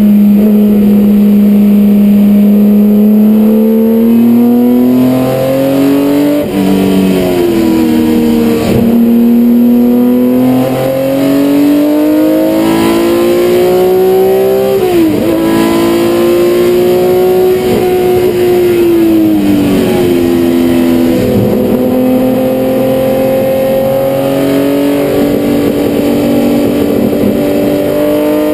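BMW M1 Procar's M88/1 straight-six racing engine, heard loud from inside the cockpit at full race pace. The revs climb, dip sharply about six seconds in and again around fifteen seconds, fall near twenty seconds, then climb again.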